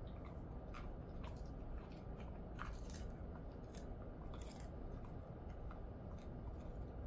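A Jindo mix dog chewing a chicken-wrapped dried capelin treat: irregular crunches, about two a second, over a steady low hum.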